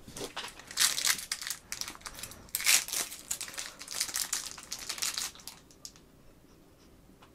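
Plastic toy packaging and ingredient packets crinkling as they are handled and torn open, in irregular bursts of crackle that stop about two-thirds of the way through.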